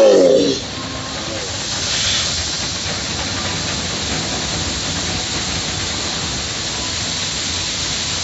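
Automatic car wash spraying water over the car, heard from inside the cabin: a steady hiss, after a voice trails off at the very start.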